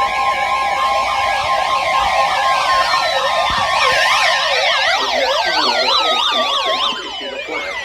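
Several electronic sirens sounding at once, fast yelping up and down in pitch. At the start a steady alert tone sounds under them and fades out; from about three seconds in, some sirens wind down in falling wails, and the whole gets quieter near the end.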